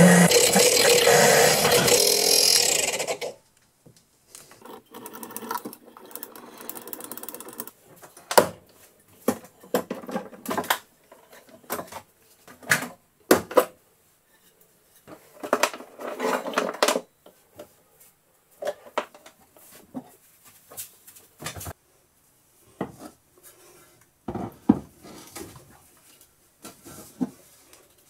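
Background music that stops about three seconds in. It is followed by scattered knocks, clicks and short rubbing sounds of hands handling tools and the granite slab at the bench.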